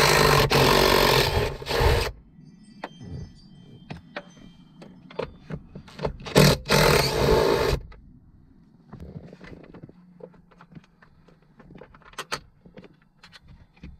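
DeWalt 20V MAX XR cordless impact driver with a 13 mm socket running twice, about two seconds each time, the second run starting about six seconds in, spinning off the nuts on a car battery hold-down bracket. Light metallic clicks and taps between and after the runs.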